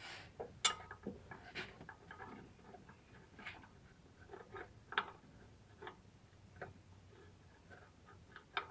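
Scattered light clicks and metal taps as a hand works tools and parts at a minivan's A/C compressor clutch, at an uneven pace.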